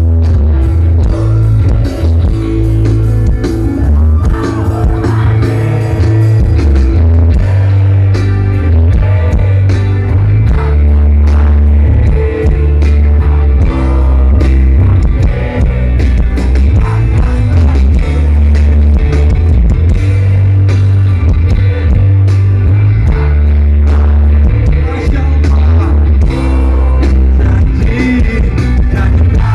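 Live rock band playing loudly, with heavy bass and drums, electric guitar and singing.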